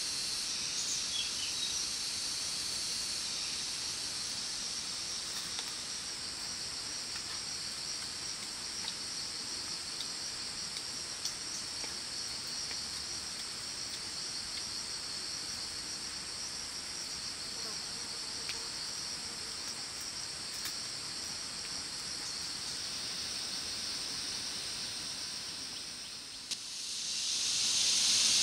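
Steady, high-pitched shrill chorus of forest insects. Near the end it dips briefly, then a louder shrill insect chorus swells in.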